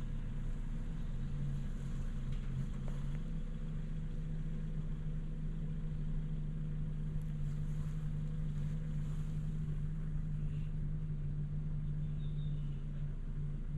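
A steady low engine hum, as of a vehicle idling, holding one even low tone, with a faint short high chirp near the end.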